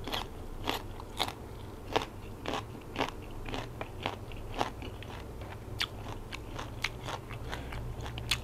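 Close-up chewing of a crunchy raw green vegetable, with crisp crunches about twice a second.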